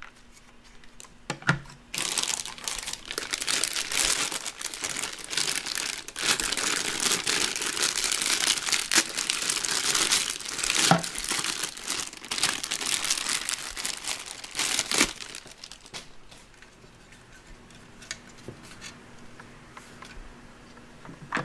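Clear plastic bag crinkling loudly as the toy's head is handled and pulled out of it, from about two seconds in until about fifteen seconds. After that it dies down to a few light clicks.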